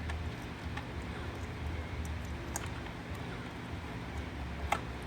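A few sharp plastic clicks as small wire connectors are handled and plugged together, the loudest near the end, over a steady low hum.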